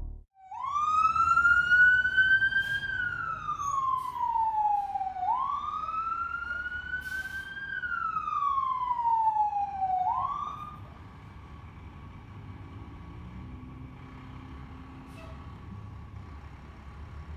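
Emergency vehicle siren wailing in two slow rise-and-fall cycles, then winding down about ten seconds in. A faint steady tone and a low rumble are left after it.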